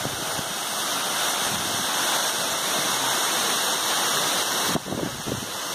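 Waterfall rushing: a steady, even hiss of falling water, with a few soft knocks near the end.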